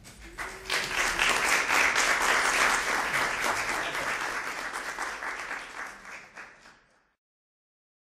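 Audience applauding, many hands clapping. It swells within the first second, then slowly dies away and cuts off near the end.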